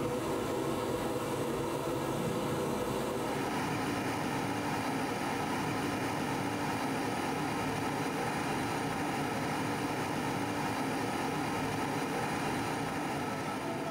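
Kiln firing at high temperature: a steady rushing roar that changes in tone about three seconds in.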